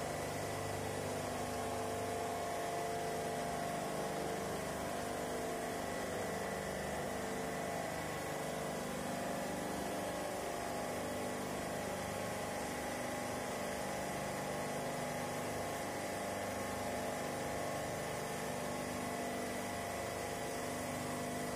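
Ice-plant refrigeration machinery running with a steady, even hum and a thin high whine.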